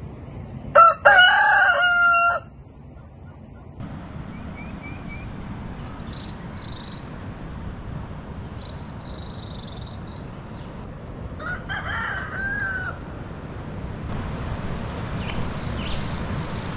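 A rooster crowing, one loud crow about a second in and a second, fainter crow about ten seconds later. Small birds chirp and call in between, over a steady low rush.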